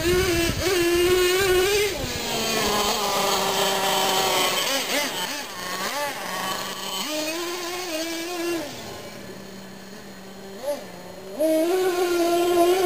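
Radio-controlled monster truck's small motor running as it is driven on gravel. It revs high for the first two seconds, then drops to a lower, wavering pitch. It revs up again for about two seconds in the middle, falls back to a quieter, lower note, and revs high again near the end.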